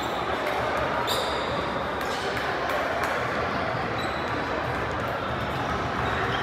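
Basketball gym sounds: sneakers squeaking briefly on the hardwood court about a second in and again about four seconds in, a few ball bounces, and background voices in the echoing hall.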